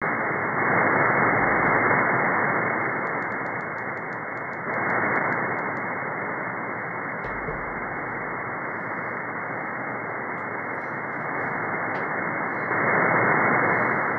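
Shortwave receiver static on 4625 kHz, the Russian buzzer's frequency: a narrow, muffled hiss that swells louder for a few seconds near the start and again near the end. A run of faint fast ticks comes about three seconds in.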